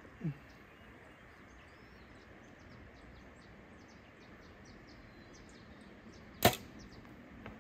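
A bow being shot: one sharp crack as the string is released, about six and a half seconds in, against a quiet background.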